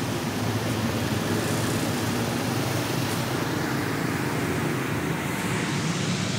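Steady running noise heard from the rear passenger bench of a songthaew, a covered pickup-truck taxi: the engine's low drone mixed with road and wind noise through the open side windows.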